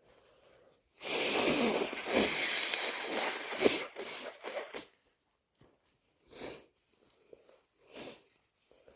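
A person with a heavy cold blowing their nose hard for about three seconds, followed by a few shorter blows. Then two sniffs through a congested nose.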